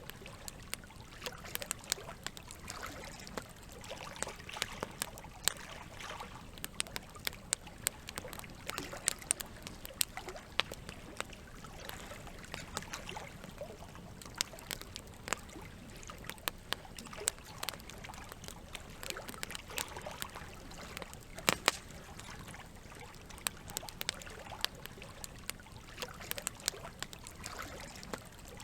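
Wood campfire crackling with frequent sharp pops and snaps, over a steady trickle of flowing water. Two of the loudest pops come close together about three quarters of the way through.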